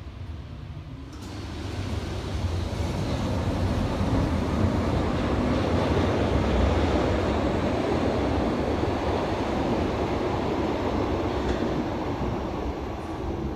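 Berlin U-Bahn train pulling out of an underground station and running off into the tunnel: a low rumble that builds from about a second in, is loudest midway, then slowly fades.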